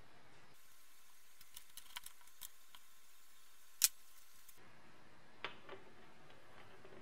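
Small clicks and taps from handling brass air fittings and a three-stage compressed-air filter unit on a workbench, with one sharper click a little before the four-second mark and another about a second and a half later.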